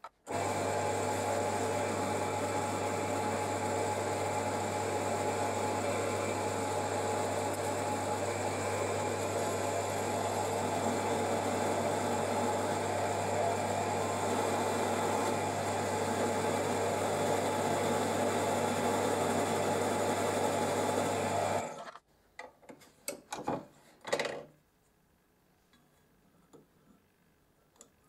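A bench drill press motor runs steadily, spinning the fire piston's rod, and cuts off abruptly about 22 seconds in. A few light clicks and taps of handling follow near the end.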